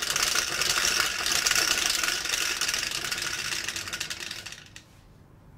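Two dice rattling inside a clear plastic dome dice shaker, a fast, dense clatter that fades out about four and a half seconds in as the dice come to rest.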